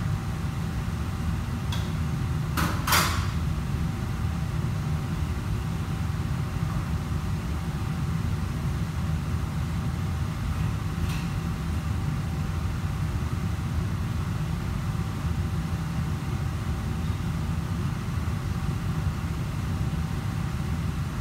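Steady low rumble of commercial-kitchen machinery and ventilation, with a faint steady hum above it. A loud clatter comes about three seconds in and a lighter click around eleven seconds.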